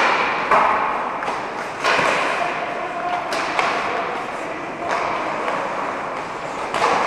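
Hockey pucks and sticks cracking against the rink boards and ice, a string of sharp knocks at irregular intervals, each ringing briefly in the echo of the arena.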